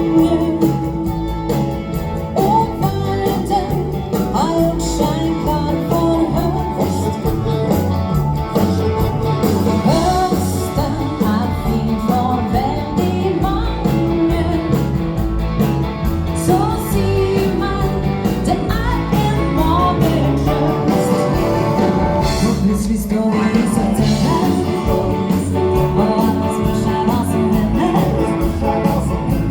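A live dance band playing an upbeat song with a steady beat, a singer over drums, bass and guitar.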